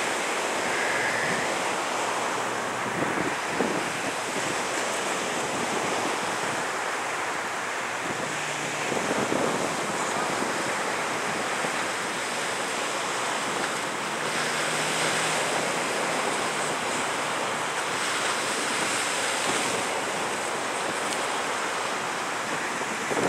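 Steady wash of waves on the shore mixed with wind noise on the microphone.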